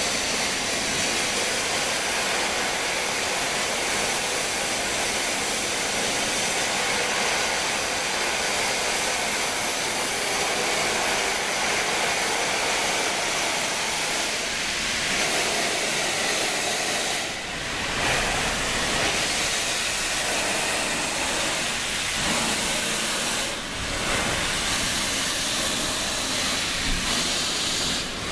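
Steam locomotives Flying Scotsman and Black Five 45407 venting steam as a continuous loud hiss, blowing off above the firebox and from open cylinder drain cocks low at the front. A deeper rumble joins about two-thirds of the way in.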